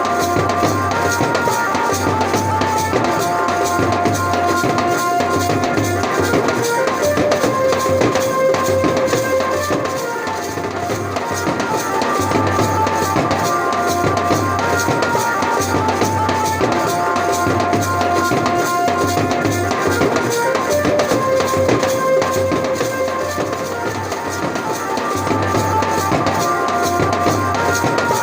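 Indian banjo-party dance music: a melody line of held notes over a dense, steady drum beat.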